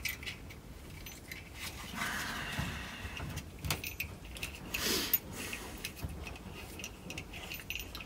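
Faint metallic clicks and rattles of a seat-belt anchor bolt and belt hardware being handled and tried in the door pillar, with a brief scrape about five seconds in.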